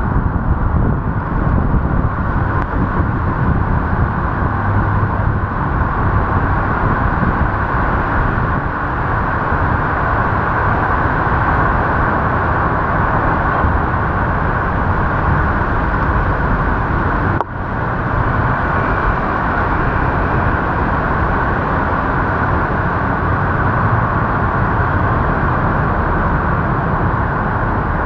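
Steady noise of riding through heavy rain: a continuous rush of wind, rain and wet-road traffic around the moving vehicle, with one brief dropout a little past halfway.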